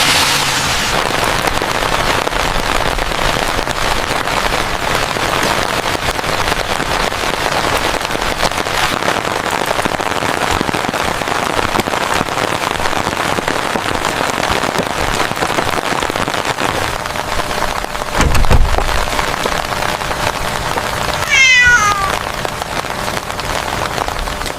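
Steady rain falling. About two-thirds of the way in comes a low thump lasting about a second, and shortly after it a short high animal call.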